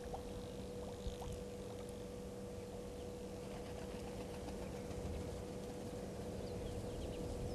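Bush ambience from a remote waterhole camera's microphone: a steady low rumble with a constant faint hum and scattered faint high chirps.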